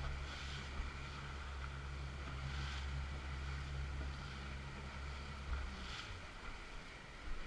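Boat motor running at a steady pitch under a constant rush of water along the hull. The engine's hum drops away about five and a half seconds in, leaving mostly the water and wind noise.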